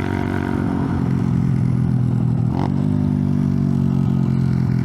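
Icebear Champion 125cc mini bike's single-cylinder four-stroke engine running at steady revs while being ridden.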